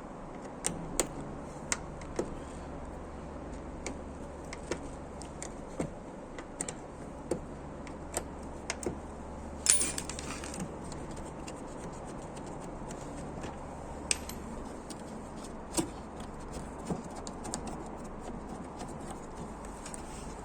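Scattered small metallic clicks of a Torx T25 screwdriver undoing a fog-light mounting screw, with a louder clatter of metal about ten seconds in.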